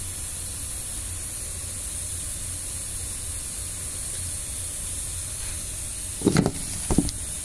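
Steady hiss of background noise, with two short louder sounds about six and seven seconds in.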